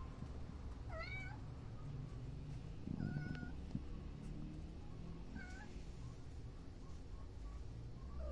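Kitten mewing: four short, high-pitched mews about two seconds apart, over a steady low rumble.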